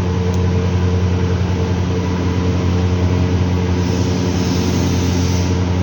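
LG washing machine running with a steady motor hum, on a test run after cleaning and maintenance.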